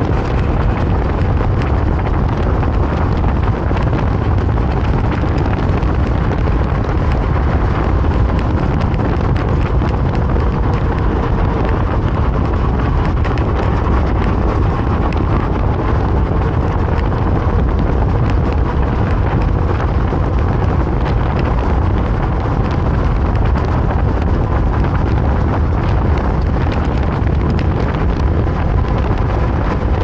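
Wind buffeting the microphone of an electric scooter ridden at speed, about 55 km/h: a loud, steady, rough low rumble, with a faint steady whine from the scooter underneath.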